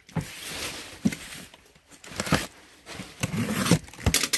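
Box cutter slicing the packing tape on a cardboard box, then the cardboard flaps being pulled open: several scraping, rustling strokes with a few sharp clicks.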